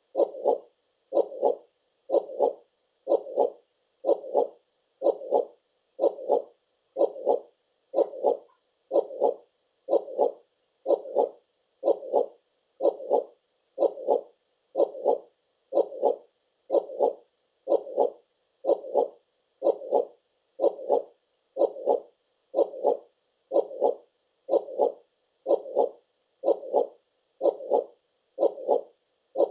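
Heartbeat sound: a steady double thump, lub-dub, about once a second at an even pace throughout.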